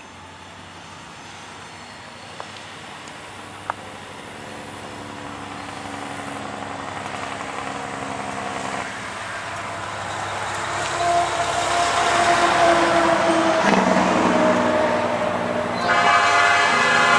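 A diesel freight train led by an EMD SD60 locomotive approaching, its engine drone and rail noise growing steadily louder. About a second before the end, the locomotive's Nathan Airchime P5 five-chime horn starts a loud blast.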